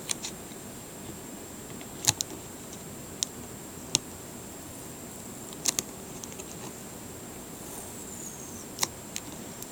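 Scattered sharp clicks and taps from handling a cardboard collectible box while working its packing tape loose, with a brief falling high rasp near the end.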